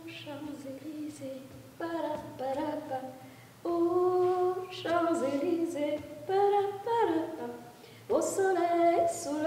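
A woman singing alone, without accompaniment, in short phrases of held notes with brief pauses between them.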